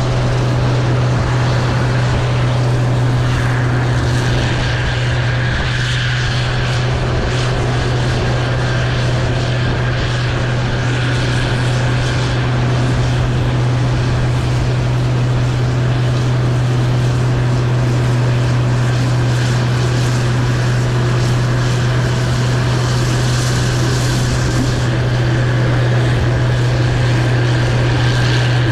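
Case IH 2388 Axial-Flow combine running steadily while harvesting soybeans: a constant low engine and threshing drone.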